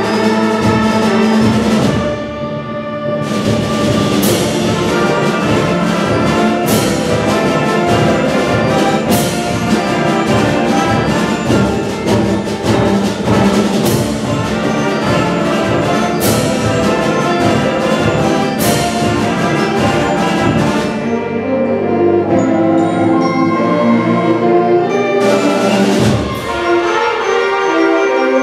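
An eighth-grade concert band plays sustained chords in the brass and woodwinds, with loud percussion hits about every two and a half seconds. It thins to a softer passage about two-thirds of the way through, then the full band comes back in near the end.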